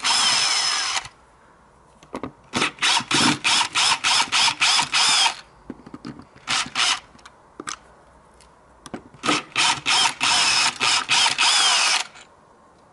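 Cordless drill-driver backing out the screws of a broken cockspur handle from a uPVC window frame. It runs in rapid pulses, in four spells with short pauses between, the longest about three seconds.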